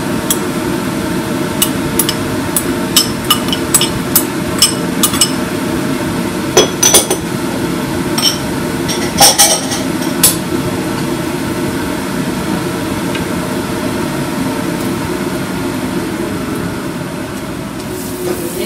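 A run of about a dozen sharp clinks and knocks of kitchenware over the first ten seconds, then they stop; a steady hum runs underneath.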